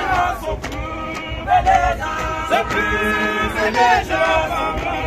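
Isicathamiya male a cappella choir singing in close harmony, several voices holding chords together and shifting to a new chord every second or so.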